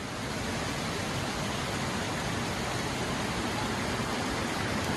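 Waterfall's rushing water, a steady even hiss.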